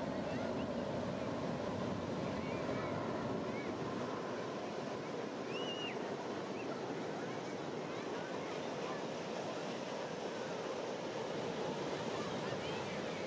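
Steady noise of surf and wind at the beach, with a few faint short high chirps over it, the clearest about halfway through.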